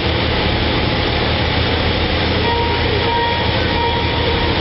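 Tour boat's engine droning steadily, a constant low rumble under a rushing hiss of wind and water.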